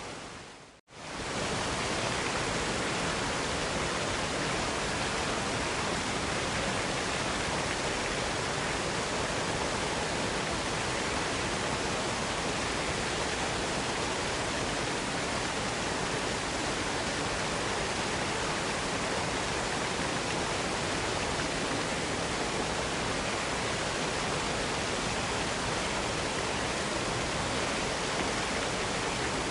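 Steady, even rushing of a waterfall. About a second in it fades quickly to silence and swells back up.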